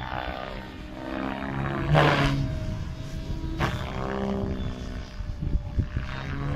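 ALZRC N-Fury T7 electric RC helicopter in 3D flight: the rotor and motor hum rises and falls in pitch as it manoeuvres. Two brief loud swishes come about two seconds in and again about a second and a half later.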